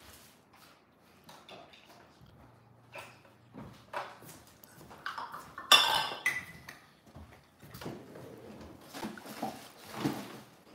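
Small plastic toy pieces and play-dough tubs being handled, clicking and knocking on a stone countertop, with scattered light taps and one sharp clatter about six seconds in.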